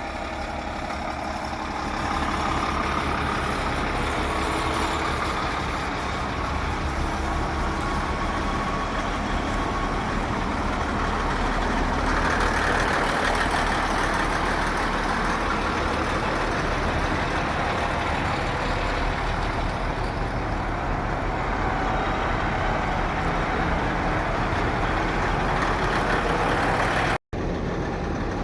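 Heavy diesel engines of Caterpillar 637C twin-engine scrapers running steadily. The sound drops out for an instant near the end.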